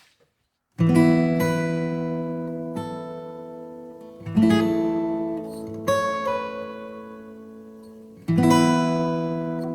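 Background music: acoustic guitar chords strummed and left to ring, a new chord struck every one to three seconds, starting after a short silence.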